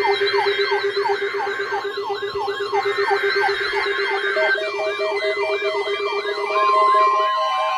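Electronic emergency warning alarm of a weather-radio alert sounding as a test: several siren tones layered at once. Quick falling wails repeat about three times a second over a fast-pulsing low tone. An on-off beep joins about halfway, and a steady tone comes in near the end as the pulsing stops.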